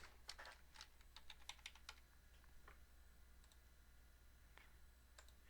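Faint typing on a computer keyboard: a quick run of about a dozen keystrokes in the first two seconds, then a few scattered key clicks.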